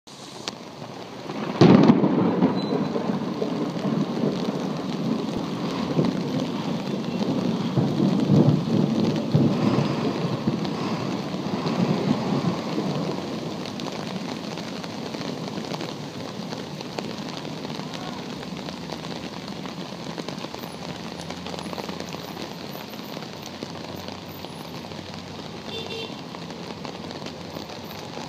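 A thunderclap about two seconds in, rolling on and fading over some ten seconds, over steady heavy rain falling on a flooded street; after the thunder dies away, only the even hiss of the rain remains.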